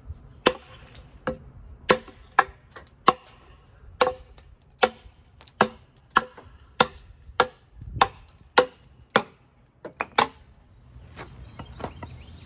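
A hand-forged wrapped eye axe chopping into the edge of a wooden board: a run of sharp chops, one about every two-thirds of a second, that stops about ten seconds in.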